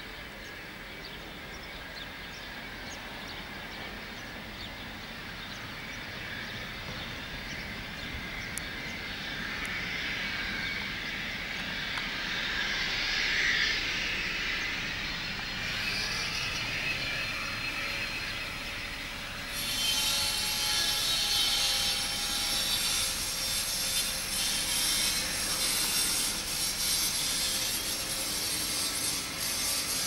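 Cessna Citation S/II business jet's twin turbofan engines rushing as it lands and passes by, the noise swelling to a peak around the middle. About twenty seconds in, a sudden louder, hissier rush comes in and carries on as the jet rolls out.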